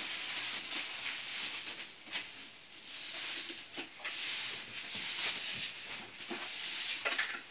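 Plastic packaging wrap crinkling and rustling as it is pulled and slid off a keyboard, with sharper crackles now and then.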